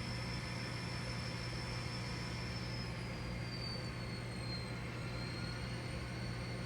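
N scale model locomotive running, a steady hum with a thin high whine that glides down in pitch about three to five seconds in as the engine eases off its speed.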